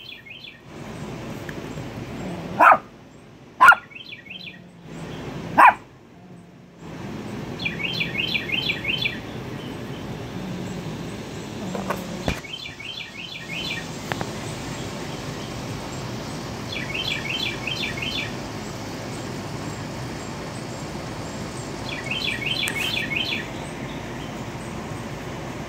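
A dog barks three times within the first six seconds. Then a songbird sings short, rapid chirping phrases every four or five seconds over steady outdoor background noise.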